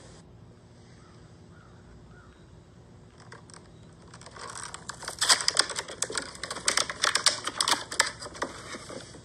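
Plastic blister packaging of a carded diecast toy car being handled, with a quick run of sharp crinkles and clicks that starts about three seconds in and is densest in the middle of the stretch before it fades out.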